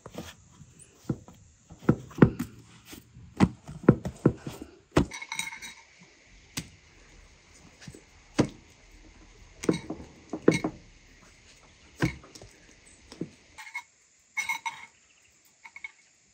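Hands handling soft bread dough on a cloth-covered table: lifting, patting and slapping dough rounds, heard as a string of soft thumps and knocks that thin out near the end. A bird calls briefly several times in the background.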